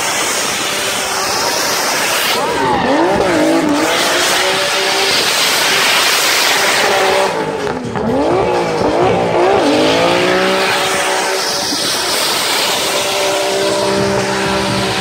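Drift car doing a burnout: the engine is held at high revs while the rear tyres spin and squeal. Twice, about three and eight seconds in, the revs drop and climb back up.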